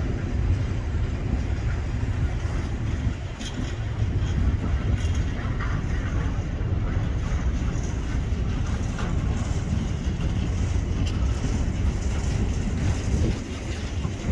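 Class 66 diesel locomotive's two-stroke V12 engine running with a steady low rumble as the locomotive creeps slowly along the loop towards the platform.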